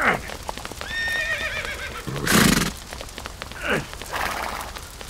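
Horse neighing, a quavering whinny about a second in, followed by a short loud noisy blast and a brief falling call, with hooves clip-clopping.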